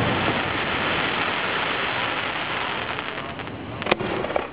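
Aerial fireworks: the hissing, crackling rumble after a shell burst, slowly fading, then a single sharp bang near the end as the next shell is launched, followed by a few smaller pops.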